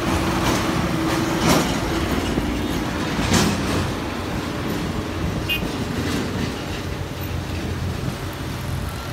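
Strong storm wind gusting and rumbling heavily on the microphone, with a steady low hum underneath and two brief sharp rattles about one and a half and three and a half seconds in.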